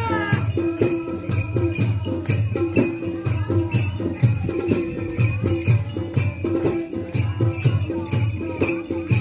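Folk music with a steady, repeating drumbeat and jingling, rattling percussion.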